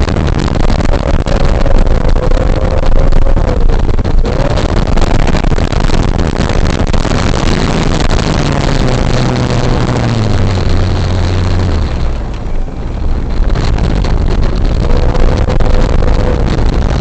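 Electric motor and propeller of a 1:6 scale RC Cessna 182 in flight, a steady loud rush of air with a wavering whine over it. About eight seconds in, a lower tone drops in pitch, as when the throttle is eased back, then steadies.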